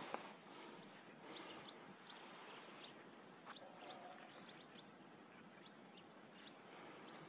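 Faint, scattered short high chirps of small birds over a soft outdoor hiss.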